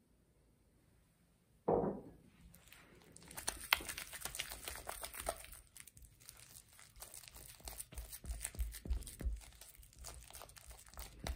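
White spatula scraping and folding soft butter cookie batter around a glass bowl, with many irregular wet clicks and scrapes against the glass. About two seconds in there is a single sudden thud.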